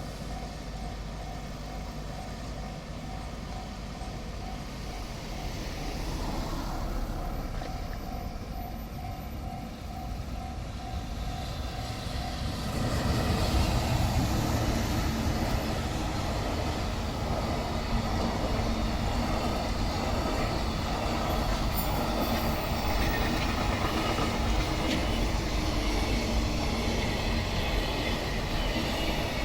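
Japanese level crossing alarm ringing in a steady pulsing tone, about two rings a second. About twelve seconds in, a train reaches the crossing and passes over it, its wheel and rail noise loud and continuous.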